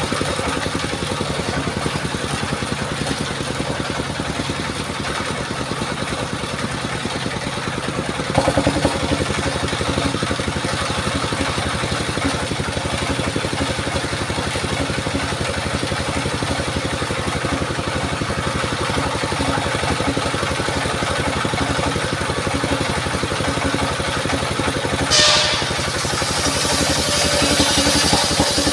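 Engine of a mobile circular sawmill running steadily with a fast, even beat, getting louder about eight seconds in, with a brief hiss near the end.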